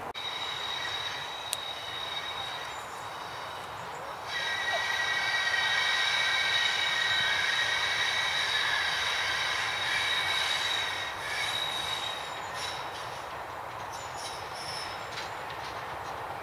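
An approaching diesel-hauled train's wheels squealing on the rails: several steady high-pitched tones that swell about four seconds in and die away after about eleven seconds into fainter, broken squeals and clicks, over a low rumble.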